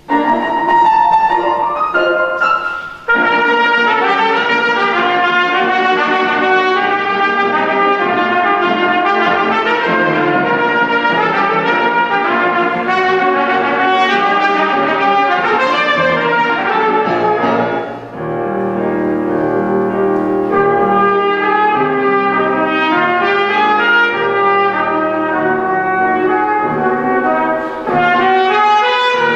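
Trumpet playing a classical piece with grand piano accompaniment. The music starts right at the beginning, with short breaks about three seconds in and again near eighteen seconds.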